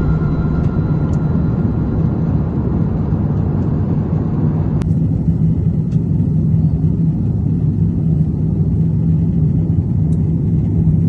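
Airbus A350 airliner cabin noise in cruise: a steady low rumble of engines and airflow heard from inside the cabin, with a steady low hum.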